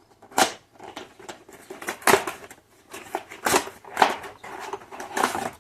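A doll's retail box being opened by hand: a run of irregular rustling and ripping packaging noises, with about five louder ones.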